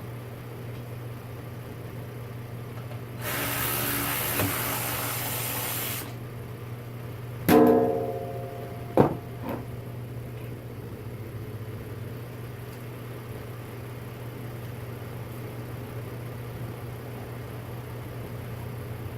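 A metal part clanging loudly and ringing on, then a second sharp knock about a second and a half later, a few seconds after a hiss that lasts about three seconds, all over a steady low hum.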